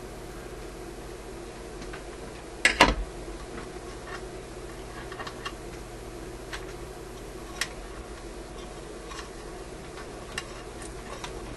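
Light scattered clicks and taps of hands and small tools working wires on a radio chassis, with a louder clatter of knocks about three seconds in, over a steady low hum.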